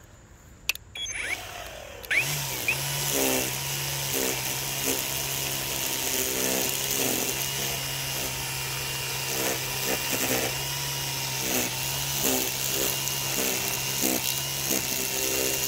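EGO 56V PowerLoad cordless string trimmer starting up about two seconds in and running steadily with a thin whine, its line edging grass along asphalt. The note swells briefly again and again as the line bites into the edge, and it stops at the very end.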